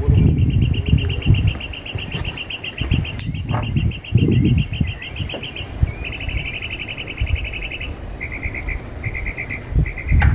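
A high, fast pulsed trill from a small animal: two long trains over the first eight seconds, then short bursts, over low thuds and knocking noise.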